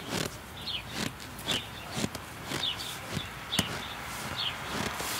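Footsteps crunching in snow, about two steps a second, with short high bird chirps over them.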